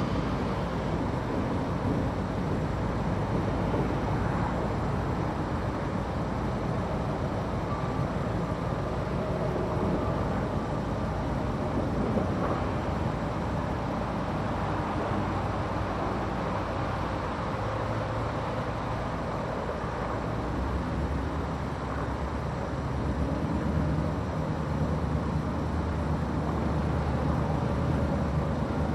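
Ohio Central locomotive 2162's diesel engine running with its stone train, a steady low rumble that holds at an even level, with faint higher tones coming and going.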